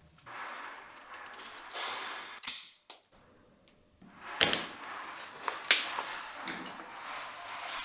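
Stitching thread being drawn hard through the leather welt and insole while hand-welting a boot: long rasping pulls, a short pause, then more pulls with a few sharp snaps as the thread is tightened.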